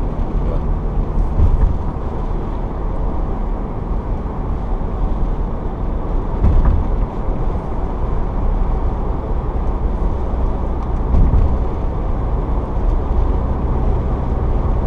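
Steady road and engine noise of a 2013 Toyota Tacoma pickup driving on a snowy, icy interstate, heard from inside the cab, with a few low thumps from bumps in the road.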